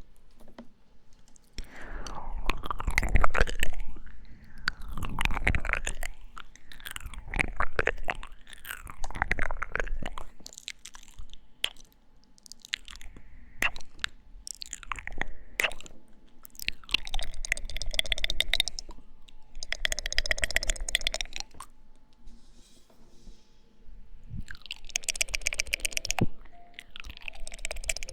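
ASMR mouth sounds: wet smacks and tongue clicks, irregular at first, then in dense runs of rapid clicking about two-thirds of the way through and again near the end.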